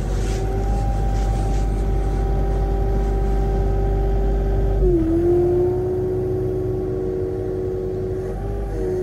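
Case CX37C mini excavator's diesel engine running steadily while working. Its note dips about five seconds in, stays lower for a few seconds, and picks back up near the end.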